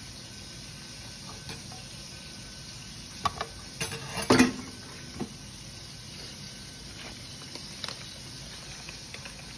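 A few light taps and clicks from handling food and kitchen utensils while pickle slices are laid on a sandwich, with the loudest cluster about four seconds in, over a steady faint hiss.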